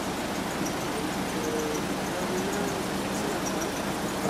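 Steady outdoor background noise, an even rush, with faint high chirps repeating several times a second.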